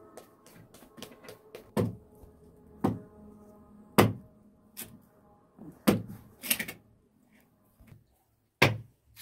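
Hands patting and slapping soft bread dough while shaping it into balls on a floured cloth: a series of sharp slaps and soft thumps, about six louder ones roughly a second apart with lighter pats between.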